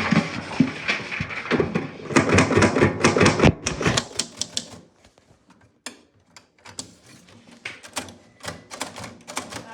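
Manual typewriter being typed on: a dense, fast run of key strikes for about four seconds, then slower, separate keystrokes.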